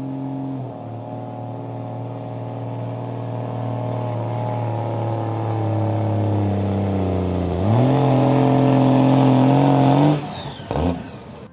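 A second-generation Dodge Ram pickup's engine working hard under load as it drags a truck-pull sled. Its pitch sinks slowly as the load builds, then jumps up sharply about two-thirds of the way through and runs at its loudest for a couple of seconds. Near the end it falls away suddenly.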